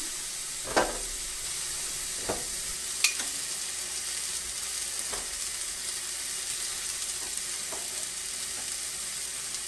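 Chicken thighs and turkey burgers sizzling steadily on the hot grid of an infrared indoor grill. A few short clicks and taps come from metal tongs as onion slices are laid on.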